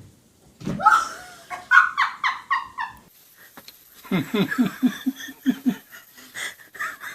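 People laughing: a high-pitched run of quick laughs, then a deeper, rhythmic run of laughter about four seconds in.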